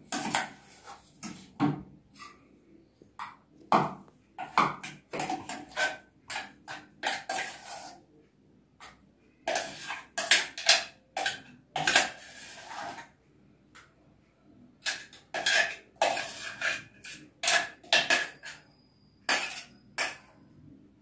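A metal spoon scraping and clinking inside a stainless-steel mixer-grinder jar, scooping out ground red chilli chutney paste. The clinks and scrapes are irregular with short pauses, and there are a few longer scraping strokes around ten and twelve seconds in.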